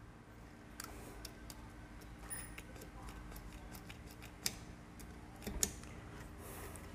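A handful of light, scattered clicks and taps as small metal engine parts and tools are handled while the push rod spring is fitted. The loudest click comes about five and a half seconds in, over a faint steady hum.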